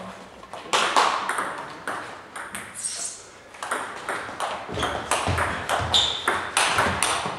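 Irregular clicks of table tennis balls bouncing on tables and striking bats, several a second, with a brief high squeak about six seconds in.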